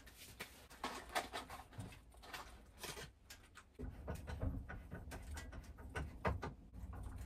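Scattered knocks, clicks and rustling of wood and tools being handled. A low rumble comes in about four seconds in.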